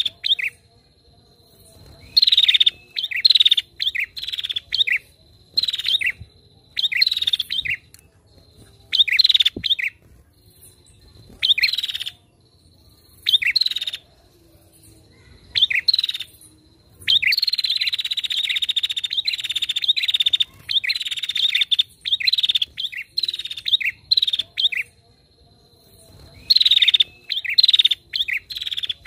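Female prinia (prenjak) calling: short bursts of sharp chirps repeated every second or two, with one long, rapid trill about two-thirds of the way through. A faint steady high tone sounds in the pauses between phrases.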